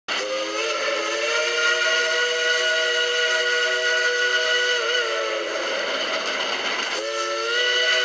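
Steam whistle of Shay #2, a geared logging locomotive, blowing a long chord of several tones. The pitch slides up as the whistle opens and sags as it closes after about five and a half seconds. After a brief rushing noise, a second blast opens about seven seconds in.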